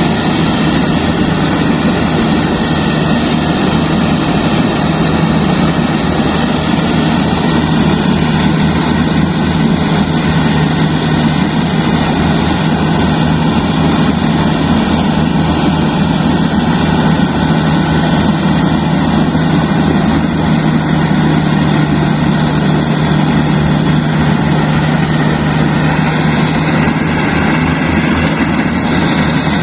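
Yanmar AW70 combine harvester's diesel engine running steadily under load, a loud, even mechanical drone with a constant low hum that holds without change.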